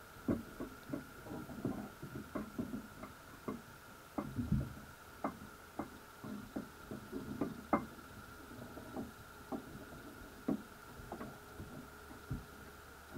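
Underwater sound picked up by a submerged camera in a crab pot: irregular light clicks and soft knocks, several a second, over a steady faint high whine.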